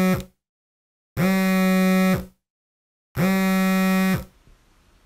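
Smartphone wake-up alarm going off: a low, buzzy electronic tone sounding in blasts of about a second, repeating every two seconds, then stopping a little over four seconds in.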